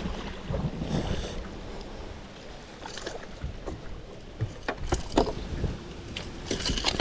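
Outdoor rumble of wind on the microphone, with a few scattered clicks and knocks of gear being handled, more of them near the end.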